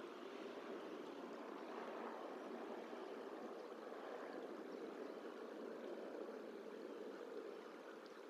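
Steady rushing outdoor background noise, fairly faint, easing slightly near the end.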